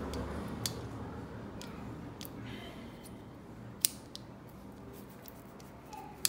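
Scattered sharp clicks and taps of small metal parts and hand tools being handled during bicycle rear-derailleur work, the loudest a little under four seconds in. A faint low hum fades underneath.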